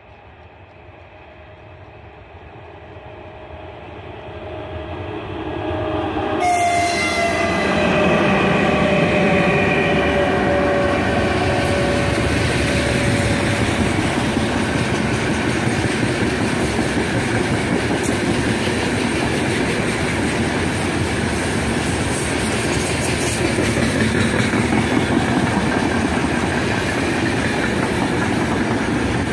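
A 3ES5K 'Ermak' three-section AC electric locomotive hauling a heavy freight train grows louder as it approaches. About six seconds in it passes close, its horn sounding with a pitch that falls as it goes by. Then the open freight wagons rumble and clatter steadily over the rail joints.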